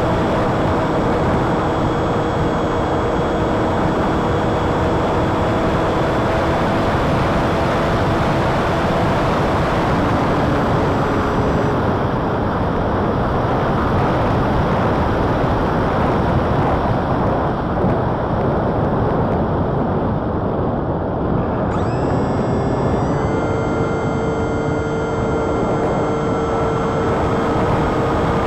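Wind rushing over an RC flying wing's onboard camera microphone, with the whine of its Emax 2207 1900kv brushless motor and folding propeller. The motor whine fades out a little under halfway through, then comes back about two-thirds of the way in, stepping up in pitch.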